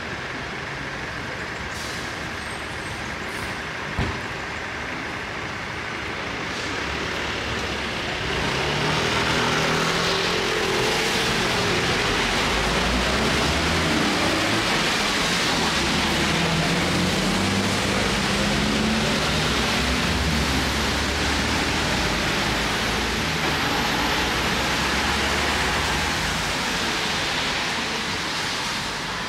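City street traffic: a heavy road vehicle running close by, louder from about eight seconds in for some twenty seconds, its engine pitch rising and falling over a steady traffic hiss. One sharp knock about four seconds in.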